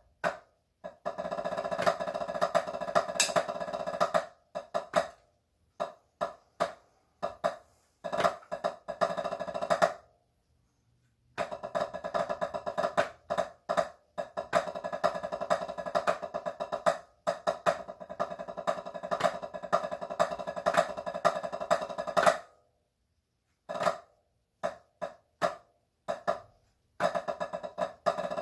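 Wooden drumsticks on a practice pad playing a rudimental snare solo: long, dense rolls and fast passages alternate with scattered single strokes. The playing stops completely twice, for a second or so each time.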